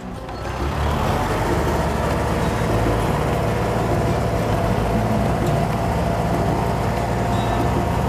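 Compact tractor engine running steadily under load as it pulls a potato plow set deep through the soil. The sound builds over about the first second, then holds level.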